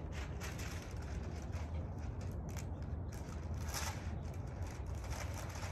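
Irregular scraping strokes from hand prep work on the house exterior, over a steady low rumble.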